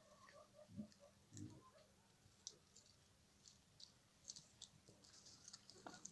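Faint sound of a dog eating out of a plastic bag: scattered small clicks of chewing and crinkling plastic, with two soft thumps about a second in.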